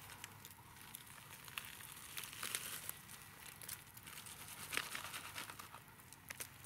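Faint crackling and crinkling as the charred, roasted armadillo's shell and meat are pulled apart by hand and with a knife, with scattered small clicks.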